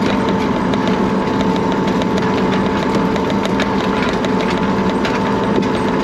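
Farm machine engine running at a steady speed as it travels, with continuous rattling and clatter over it.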